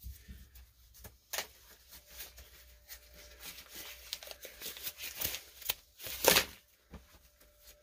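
Black nitrile glove being turned right side out and worked onto the hand: a run of rubbery rustling, stretching and small snaps, louder about six seconds in.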